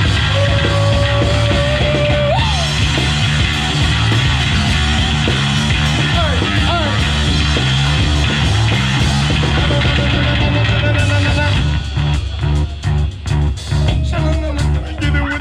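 Live rock band jamming on electric guitar, bass and drums. A held lead note bends upward about two seconds in, and near the end the band plays short, choppy hits.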